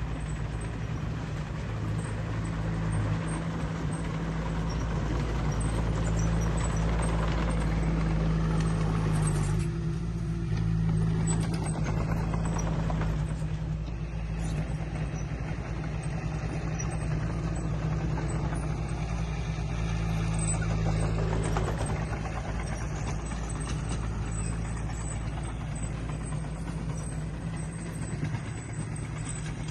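Diesel engine of a Komatsu D20 bulldozer running steadily at work, its level rising and easing as the load changes.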